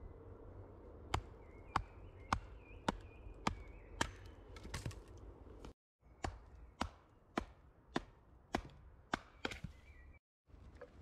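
Axe chopping wood in steady, evenly spaced strokes, about two a second, broken twice by brief abrupt dropouts.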